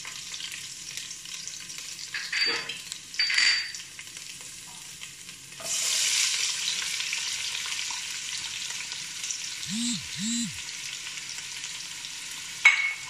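Hot oil sizzling in a non-stick pot as sliced shallots, onion and garlic are tipped in, the sizzle jumping louder about six seconds in as the onions hit the oil. A couple of short scrapes come before it and a sharp clink near the end.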